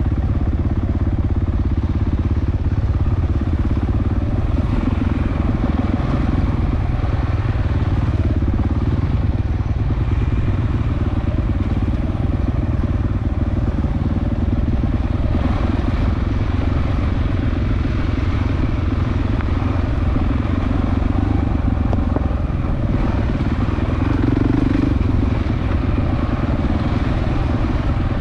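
Dirt bike engine running steadily as it rides along a rough forest singletrack.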